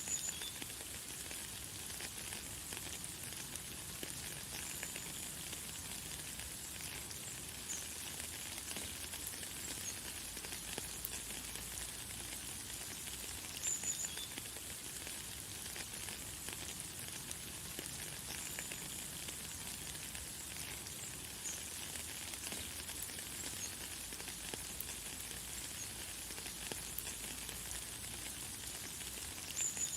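Light, fine rain falling in a steady hiss, with a bird giving brief, high chirps now and then, about a handful of times.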